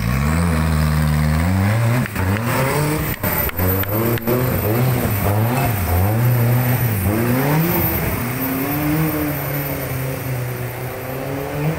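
An extreme off-road 4x4 truck's engine revving up and down over and over under load. A few sharp knocks come between about two and four seconds in.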